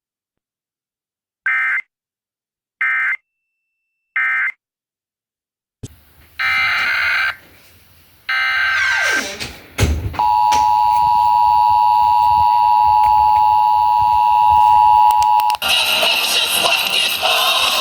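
Emergency Alert System tones received over AM radio. First come three short warbling data bursts, the end-of-message code closing the previous test. Then, over radio static, come the longer data bursts of a new alert header and the steady two-tone attention signal, which sounds for about five seconds before static and station audio return.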